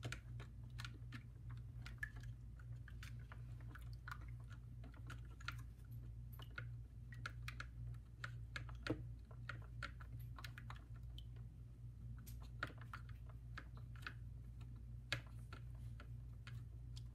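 Wooden popsicle stick stirring a runny glue, water and paint mixture in a small mixing bowl, making quick irregular clicks and scrapes against the bowl, over a steady low hum.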